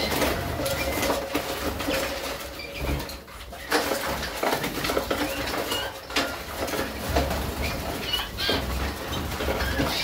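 Young canaries fluttering and flapping their wings, with many short clicks and knocks of the cage or box being handled and a few short high chirps.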